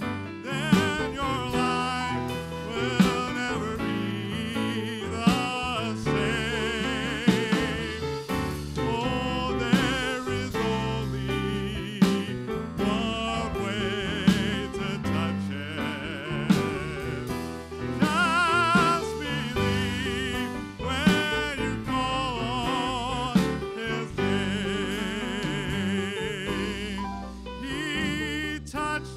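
Live gospel music: a slow song with a strong beat about every two seconds under a wavering, vibrato lead melody, with no words sung.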